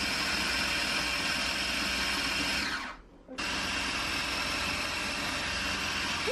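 Small electric food processor running, chopping basil into pesto. It runs for about three seconds, winds down and stops briefly, then starts again.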